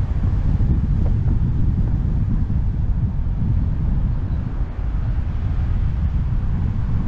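Wind buffeting the microphone over the low, steady rumble of a car driving along a road.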